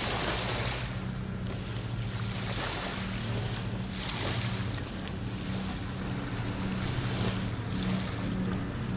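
Low, steady hum of a passing ship's engine on the river, under the wash of small waves against the bank, which swells every second or two.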